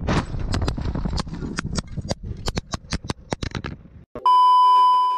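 A motorcycle crash on the road: a rapid, irregular run of sharp knocks and scrapes as the camera tumbles, over a low rumble. About four seconds in this cuts out and a loud, steady electronic beep takes over.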